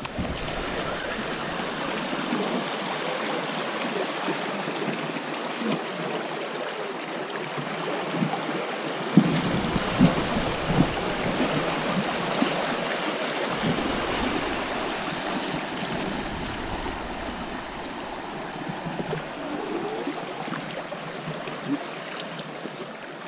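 Shallow river riffle, water rushing steadily over stones and rocks. A few dull low knocks come about nine to eleven seconds in.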